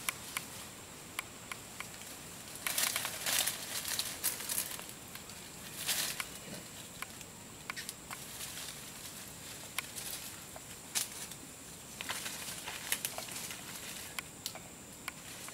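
Long-tailed macaque foraging in the undergrowth: short, uneven bouts of leaf and twig rustling and crinkling, with scattered small clicks and snaps, busiest about twelve seconds in.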